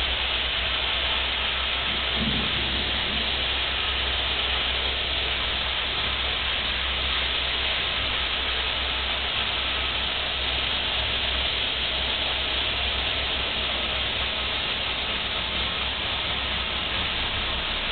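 Steady hiss of muddy rain pelting a leaded glass window, unchanging throughout, with a low hum underneath.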